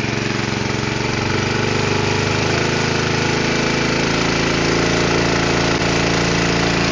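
Small gas engine driving a brine sprayer's pump, running steadily. It speeds up a little about a second in as the throttle is opened to bring the pump to 40 PSI, then holds.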